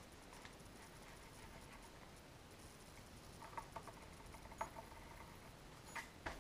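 Faint pencil strokes on paper: a few short, light scratches and ticks over quiet room tone, clustered about halfway through and again near the end.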